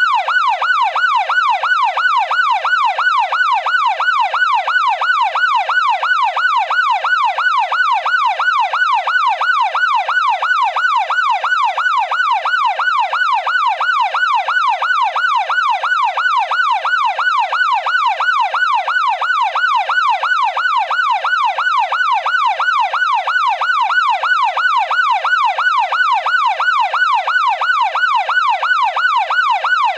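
Police car siren in its fast yelp mode: a pitched wail sweeping up and down about two and a half times a second, loud and unbroken.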